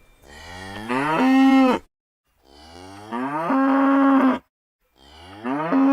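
Cow mooing: three long moos, each rising in pitch and then held on a steady tone. The third begins about five seconds in.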